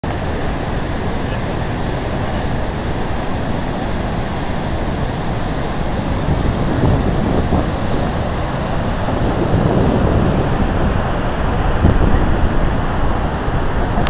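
Loud, steady roar of whitewater rapids rushing over rock at the brink of a waterfall, growing a little louder about halfway through.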